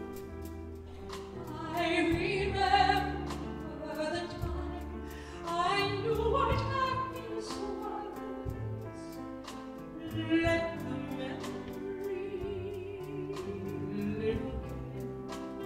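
Soprano singing a slow ballad with wide vibrato into a microphone, accompanied by a symphony orchestra with strings and grand piano. Her sung phrases swell out of the sustained accompaniment about two, six and ten seconds in.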